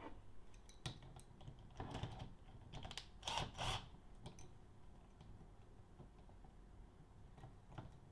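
Light clicks, taps and clatter of hard parts and hand tools being handled while a 3D-printed CNC machine assembly is taken apart. A handful of separate knocks come in the first four seconds, with a short rattle near the middle of them; after that only an occasional tick.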